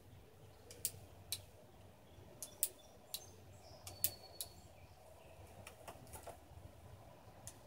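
Light, irregular metallic clicks of cartridges being loaded one at a time through the loading gate of an Italian 1889 Bodeo revolver.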